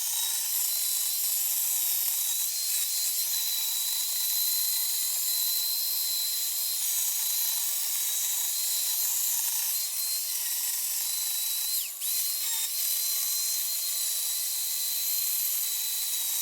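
Worx electric chainsaw running with a steady high motor whine while its chain shaves wood in sweeping cuts along the carving. About twelve seconds in, the whine drops briefly and comes straight back up.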